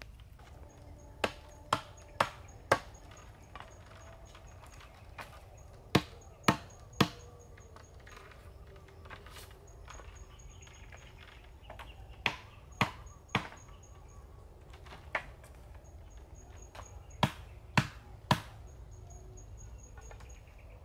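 Chopping wood with a hand tool: sharp blows in groups of three or four, about two a second, with pauses of several seconds between groups. A faint, high, pulsed chirping recurs in short runs in the background.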